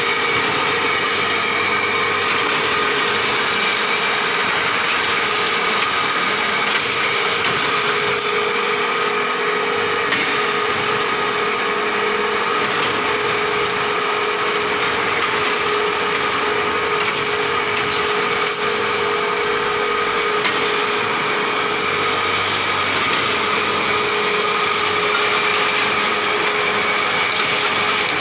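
Fireworks paper tube rolling machine running: a steady mechanical running noise from its motor and rollers, with a constant whine over it.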